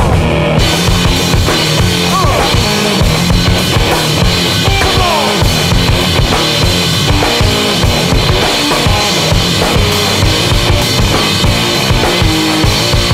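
Soundtrack music with a full drum kit keeping a steady beat, bass drum and snare to the fore, and a few short sliding notes over it.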